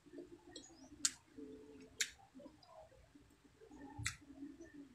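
Close-up eating sounds: a person chewing a mouthful of rice and fried dried milkfish, soft and wet, with three short, sharp clicks, the first two about a second apart and the third near the end.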